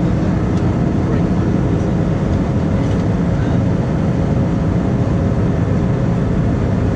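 Steady cabin noise of an Airbus A320-200 in flight, heard from a seat over the wing: a deep, even drone of the jet engines and rushing air, with faint steady hums from the engines.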